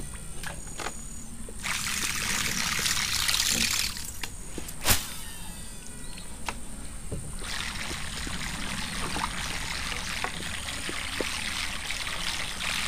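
Water splashing and trickling in stretches as a double-propeller surface lure is worked back across the water, with one sharp click about five seconds in.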